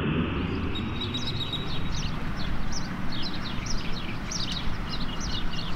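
Outdoor ambience: small birds chirping many short, falling notes over a steady low rumble. An aircraft whoosh fades out at the very start.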